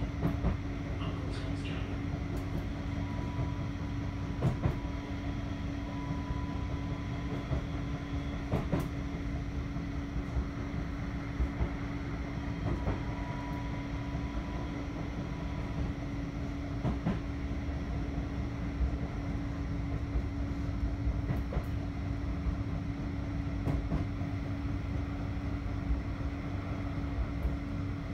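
Inside a Bombardier Flexity 2 tram running along the track: a steady low rumble with a constant hum from the running gear, and an occasional sharp knock from the wheels on the rails.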